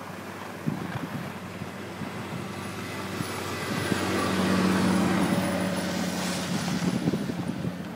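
Outdoor ski-slope ambience: a steady rushing noise that swells through the middle, with a low mechanical hum joining about four seconds in.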